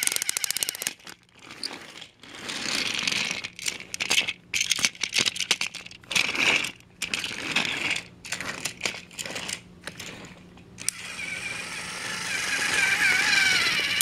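Motorised toy Thomas the Tank Engine running on plastic track, its plastic wheels and truck clicking and rattling unevenly. Near the end its motor whine grows louder as it comes close.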